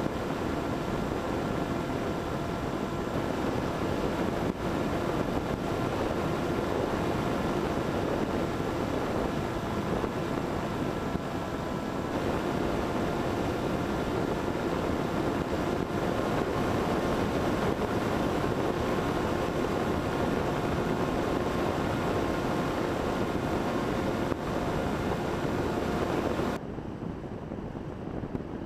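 Small brushless electric motor and propeller of an FPV flying wing running steadily, heard from the onboard camera with wind rushing over the microphone. The motor's pitch shifts about twelve seconds in, and near the end the motor sound drops away sharply, leaving mostly wind.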